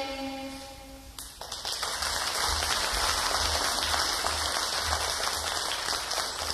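A violin's last held note fades out, then about a second in an audience breaks into applause that carries on steadily.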